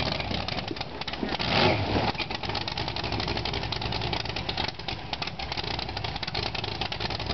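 Chevy small-block V8 in a mud truck idling steadily, with a brief louder swell about a second and a half in.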